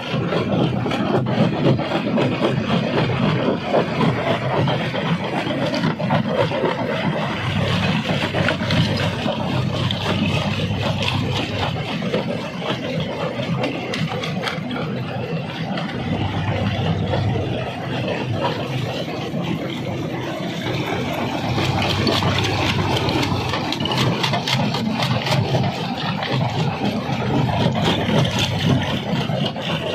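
Jaw crusher running under load, rock grinding and knocking inside it with a steady engine drone beneath.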